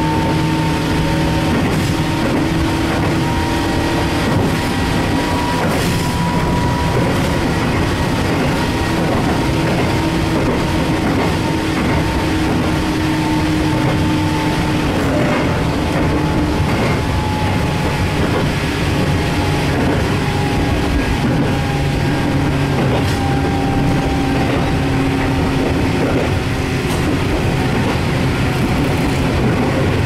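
Toyama Chihō Railway 14760-series electric train running, heard from inside the car: a steady rumble of wheels on rail with a motor hum whose pitch sags slightly.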